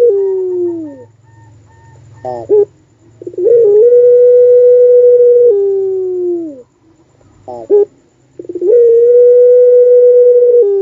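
Puter pelung dove singing its long coo, twice. Each time a short warbled note comes first, then a long, steady, loud note of about two seconds that slides down in pitch at the end.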